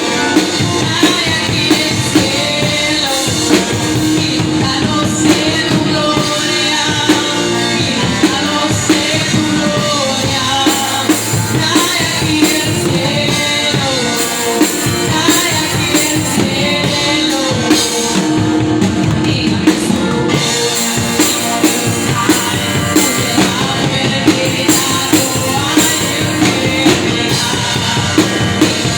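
Live worship-band music with a drum kit keeping a steady rock beat, sharp drum hits landing about once a second over sustained instrumental notes.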